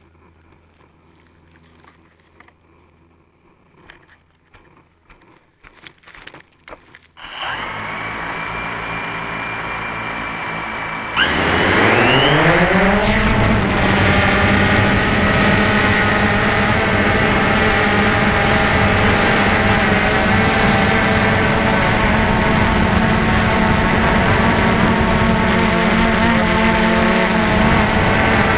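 DJI Phantom 2 quadcopter's motors and propellers, heard from the camera carried on the drone. A few faint clicks come first. About seven seconds in, the motors start suddenly and spin steadily at idle. Around eleven seconds they rise in pitch and get louder as the drone lifts off, then run at a steady pitch in flight.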